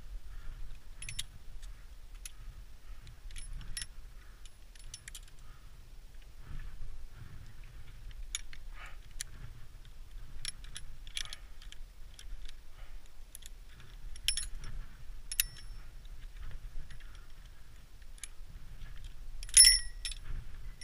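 Metal clinking of via ferrata lanyard carabiners against the hanging chains and steel rings: scattered sharp clinks throughout, with a louder cluster near the end.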